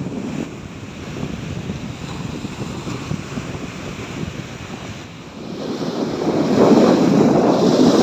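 Small sea waves breaking and washing up a sandy beach. The surf is softer at first, then a larger wave breaks and washes in louder about six seconds in.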